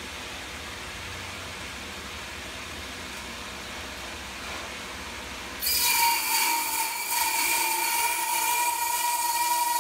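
Horizontal band sawmill running with steady machine noise; a little over halfway in, the band blade enters a large log and a loud, high-pitched cutting whine of several steady tones starts abruptly and holds.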